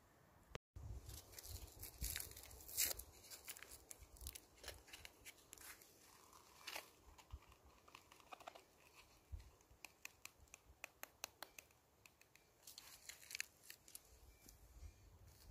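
Faint rustling and tearing of a packet with a string of small crackles and clicks as coffee granules go into a plastic camping cup.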